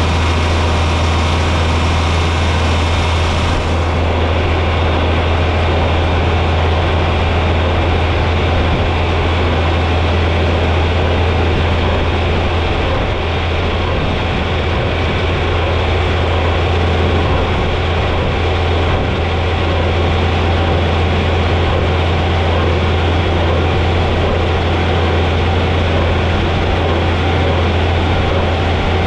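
John Deere 4020 tractor engine running steadily while baling hay, a deep, even drone that holds level throughout.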